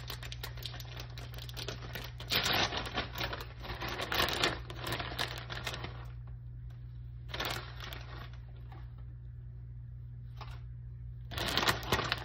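Crinkling, rustling handling noise as shredded mozzarella is put on top of a pasta bake: dense crackling for about six seconds, then a few short bursts, the last near the end, over a steady low hum.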